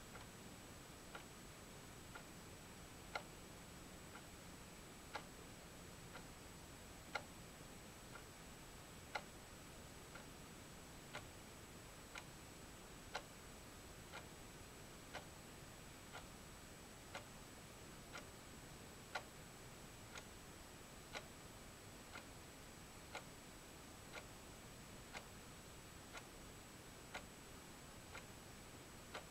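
A clock ticking steadily once a second, some ticks louder than others, over faint hiss and a thin, steady high-pitched whine.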